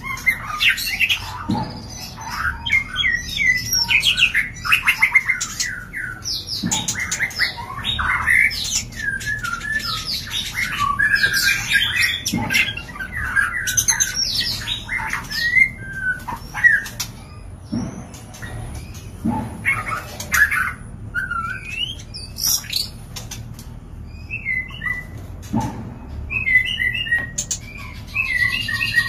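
White-rumped shamas (murai batu) giving rapid, varied courtship and mating calls: quick whistles, chatters and harsh squawks. A few low thumps break in every few seconds.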